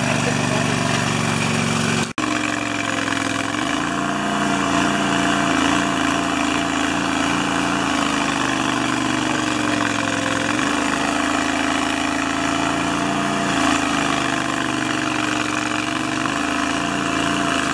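Stump grinder's engine running steadily, its pitch dipping and recovering every few seconds as the cutter wheel bites into the stump. The sound drops out for an instant about two seconds in.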